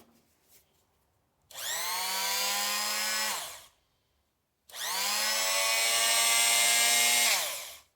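Chicago Electric oscillating multi-tool switched on and run with no load twice: a high buzzing whine about two seconds long, then a second, slightly longer and louder run, each climbing to speed and winding down when switched off.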